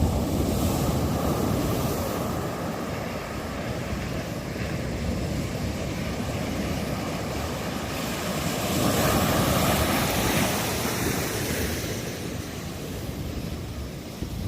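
Ocean surf breaking and washing ashore in a continuous roar, swelling louder about nine seconds in, with wind buffeting the microphone.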